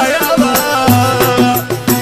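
Algerian raï song playing, with a steady percussion beat of about four hits a second under a melodic instrumental line.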